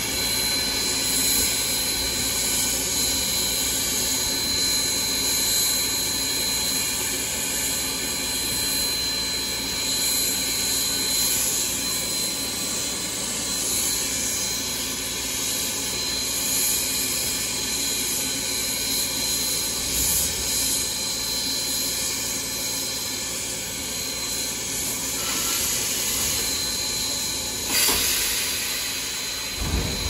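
Steady hiss of steam in the cab of Southern Railway 4501, a 2-8-2 Mikado steam locomotive, with a thin high steady tone running through it. A single short knock comes near the end.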